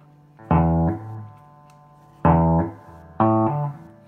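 Low plucked bass notes played through a Carvin Pro Bass 200 combo amplifier, its compressor control being tested. Three notes start sharply and fade away with gaps between them; the last is shorter and at a different pitch.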